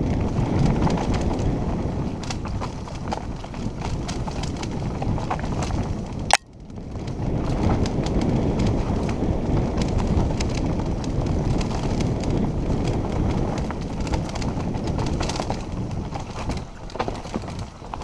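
Mountain bike rolling fast down a dirt and leaf-covered trail: continuous tyre rumble and rattling of the bike over roots and stones, with wind buffeting the helmet camera. One sharp knock about six seconds in.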